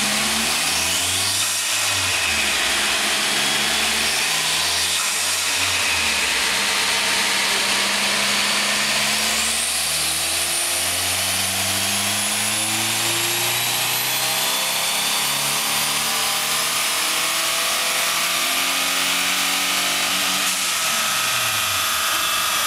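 Turbocharged 2.2 L Ecotec four-cylinder of a Pontiac Sunfire GT running on a chassis dyno. The revs rise and fall a few times, then from about ten seconds in a long wide-open pull climbs steadily in pitch with a high whine rising alongside. The engine lets off about two seconds before the end, and the pitch falls away.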